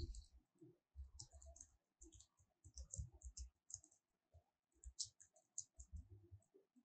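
Faint computer keyboard typing: quick key clicks in short runs with brief pauses between them.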